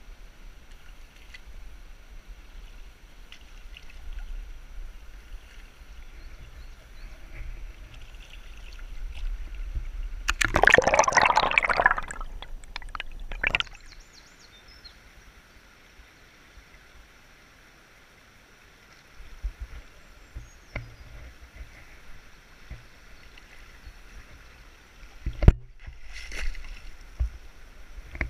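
River water sloshing and splashing around legs as someone wades through a shallow, rocky river, over a steady low rush of flowing water. A louder burst of splashing comes about ten seconds in and lasts about two seconds, then it goes quieter for a few seconds before the sloshing resumes, with a sharp knock near the end.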